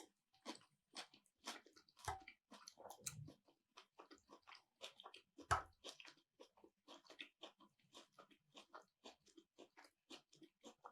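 Close-miked chewing: soft, moist mouth clicks about two to three a second, with a louder low thump about five and a half seconds in.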